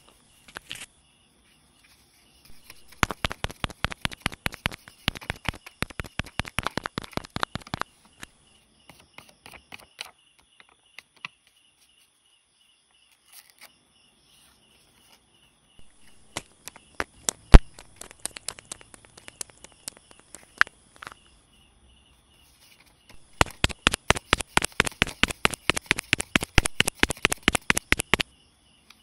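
A cut-out paper pestle tapped quickly and lightly against a paper mortar, mimicking the pounding of papaya salad. There are two runs of taps, about six a second, each lasting about five seconds, with scattered single taps between, one of them louder.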